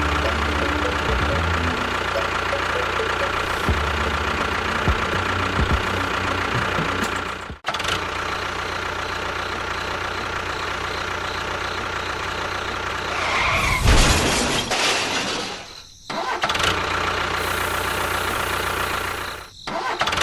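A small model vehicle's motor running steadily with a constant whine, broken off abruptly three times by cuts.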